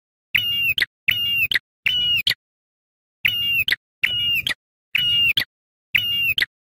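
Ashy tailorbird (prenjak kepala merah) calling seven times, each call a short, clear whistled note held level and then flicking upward at its end. The calls come about a second apart, with a longer gap near the middle. They are identical to one another, with dead silence between them.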